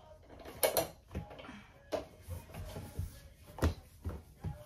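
A few scattered short knocks and thumps, irregularly spaced, the loudest about two-thirds of a second in.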